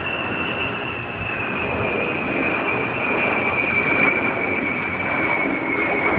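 Jet aircraft passing overhead: a high engine whine that slowly falls in pitch over a steady rushing roar.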